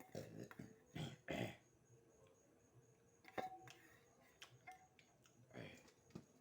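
Close-up mouth sounds of someone eating beef: short bursts of chewing and smacking, with a sharp click about three and a half seconds in.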